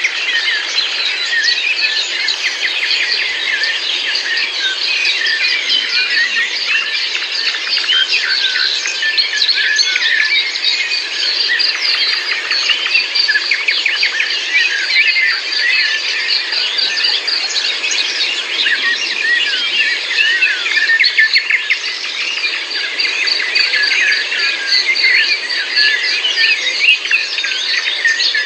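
A dense chorus of many birds chirping and twittering at once, a continuous overlapping mass of short high calls with no single voice standing out.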